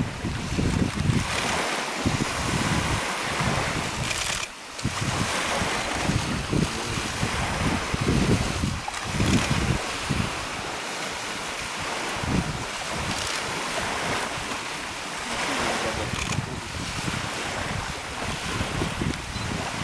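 Small lake waves washing onto a pebble shore, with wind buffeting the microphone in irregular low gusts.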